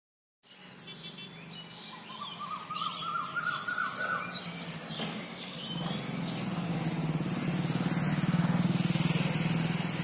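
Street ambience with birds chirping, including a quick run of repeated descending notes, while a motorcycle engine approaches and passes, growing louder and loudest near the end.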